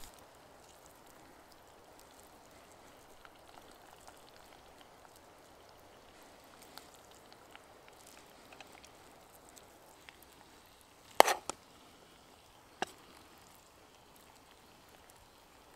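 Mostly quiet, with faint ticking from the cast iron pot over the fire. About eleven seconds in there is a sharp double clink, and another comes a second and a half later: a metal spoon knocking against the pot.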